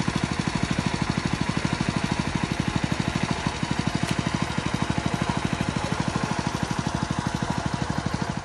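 Small engine-driven water pump running steadily with an even, rapid chug, pumping water out of a pond.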